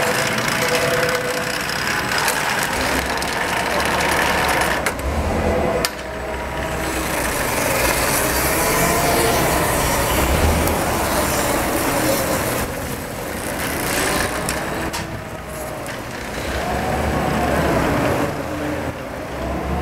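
Switch LP SW turntable stretch wrap machine running: the turntable drive hums while stretch film unwinds off the carriage onto the turning load, with a tone that wavers up and down in pitch every few seconds.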